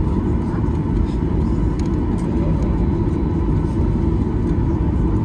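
Steady, loud rumble of a Boeing 737-800's CFM56 engines and airflow, heard from inside the passenger cabin, with a faint steady tone above it and a few light cabin clicks.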